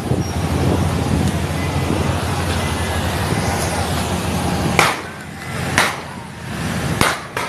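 Steady low rumble of armored riot-control vehicles running close by. About five seconds in, three sharp bangs follow, roughly a second apart.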